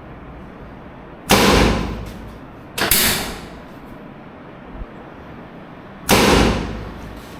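Three sudden loud thuds, about a second in, near three seconds and about six seconds in, each dying away over about half a second.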